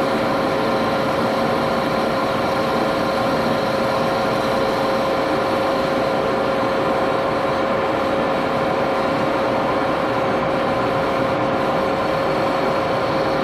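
Axelson engine lathe running steadily at 473 RPM with a constant gear whine, its cutting tool fed by hand into an aluminium part.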